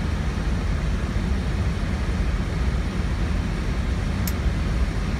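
Steady cockpit noise of an Airbus A321neo in flight, a low rumble of airflow and engines. A short high click comes about four seconds in.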